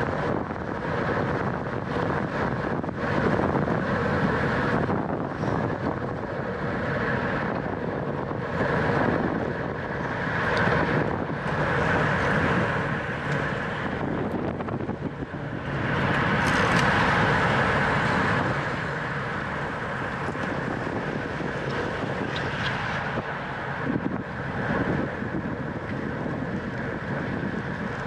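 Wind buffeting the microphone of a camera riding on a racing bicycle, mixed with steady road and tyre noise, swelling louder for a couple of seconds about two-thirds of the way in.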